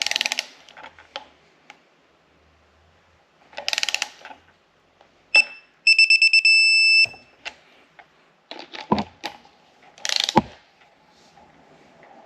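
Ratchet wrench clicking in short quick runs as the Subaru EJ25 cylinder head bolts are tightened. About six seconds in comes an electronic beep, quick pulses running into a steady tone, typical of a digital torque wrench signalling that the set torque is reached. A couple of dull clunks of the tool follow.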